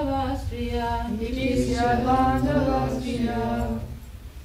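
A mixed group of voices chanting a Sanskrit verse together in unison, unaccompanied, in held melodic notes. The chant ends a little before the close.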